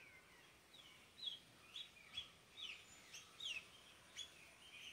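Birds calling in trees: a quick series of about eight short, high chirps, each sliding downward in pitch, over about three seconds.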